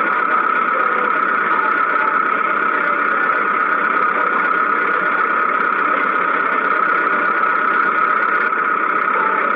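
A small motor running steadily, an even noise with a constant whine on top.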